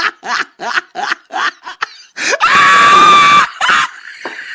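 Rapid bursts of laughter for about two seconds, then a loud train horn blast of about a second, a steady chord of flat tones, with one more short burst of laughter after it.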